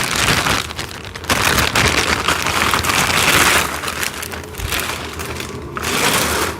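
Packaging crinkling and rustling loudly as a pack of toy parts is unwrapped and handled, heaviest in the first half and thinner toward the end.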